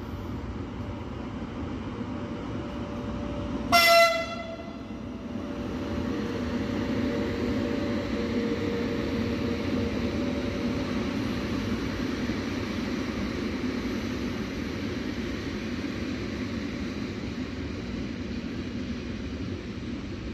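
E652 electric locomotive hauling a container freight train through the station: one short, loud horn blast about four seconds in, then the steady rumble of the container wagons rolling past.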